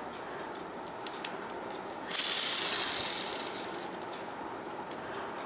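Lego Technic pull-back motor: a few light clicks, then about two seconds in the wound-up motor lets go and spins the unloaded wheels with a loud whir that fades out over about a second and a half.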